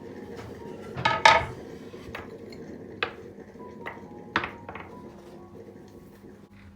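Dishes and cutlery clinking and knocking: a quick cluster of ringing clinks about a second in, then single clinks every second or so.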